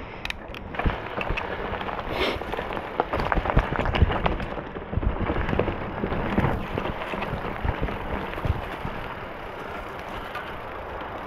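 Specialized Stumpjumper mountain bike ridden over a rough dirt trail: a steady rush of tyre noise with many irregular knocks and clatters as it rolls over roots and rocks.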